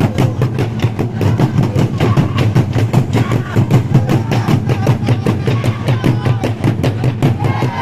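Burundian drum ensemble playing a fast, steady beat of many rapid strokes on large hand-carved drums, with voices calling over it.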